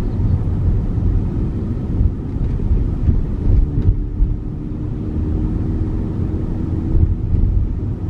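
Steady low road and tyre rumble inside the cabin of a slow-moving Tesla electric car, with no engine sound, and a faint steady hum in the middle of the stretch.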